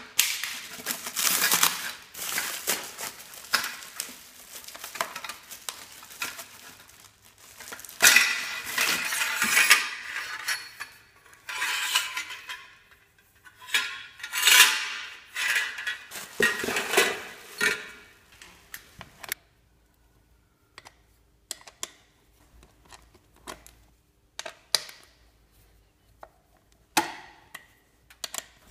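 Bubble wrap and plastic packing rustling and crinkling as metal exhaust header pipes are unwrapped and handled, with light metallic clinks among it. After about two-thirds of the way through, only scattered small clicks and taps.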